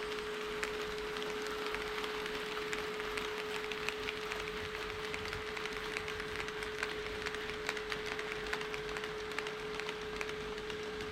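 HO scale model train running on KATO Unitrack: many small, irregular clicks of wheels over the rails and rail joints, over a steady hum.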